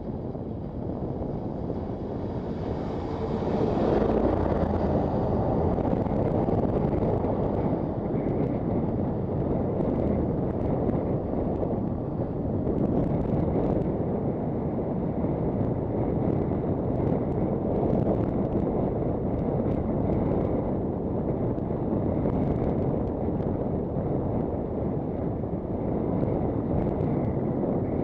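Wind rushing over the microphone of a camera on a moving bicycle, a steady deep rumbling noise that builds over the first few seconds as the bike gathers speed, then holds.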